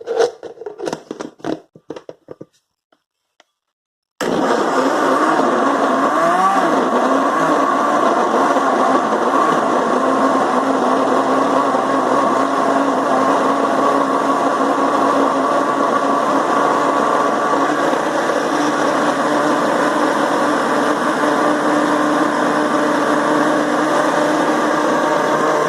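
Countertop blender starting abruptly a few seconds in and running steadily for about twenty seconds, puréeing sautéed sauce ingredients until smooth, then cutting off near the end. Its pitch wobbles briefly a couple of seconds after it starts. Before it starts there are a few light handling clicks.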